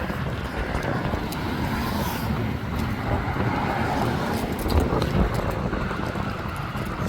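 Outdoor urban ambience: road traffic running past, with wind rumbling on the microphone.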